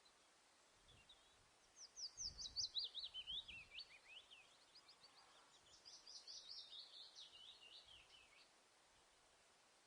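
A songbird singing two quick phrases of rapid high chirps, each stepping down in pitch, one about two seconds in and one about six seconds in, over a faint steady hiss.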